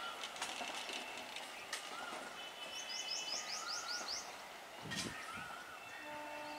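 Quiet trackside ambience with birds calling: a quick run of about eight high, falling chirps in the middle and repeated short whistled notes. There is a single knock about five seconds in, and near the end a steady, distant horn-like tone begins.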